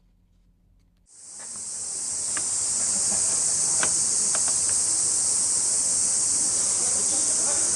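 A steady high hiss, like gas or spray escaping, begins suddenly about a second in, swells briefly and then holds steady, with a few faint clicks beneath it.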